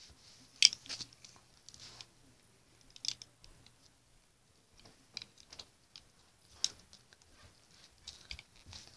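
Monster High dolls being handled and moved across carpet close to the microphone: scattered light clicks, taps and rustles of plastic and hands, the sharpest click about two-thirds of a second in.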